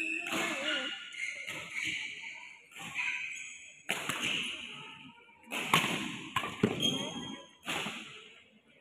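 Badminton rally: rackets striking the shuttlecock, with a sharp hit about every second and a quick pair of hits near the middle, each ringing on briefly in the hall.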